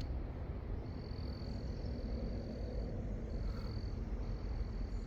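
Insects trilling in a steady high-pitched drone that breaks off briefly twice, over a constant low rumble.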